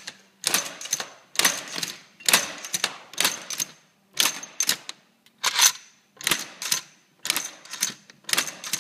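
Magazine loader clicking as cartridges are fed from a linked ammunition belt into the magazine: bursts of rapid clicking about once a second.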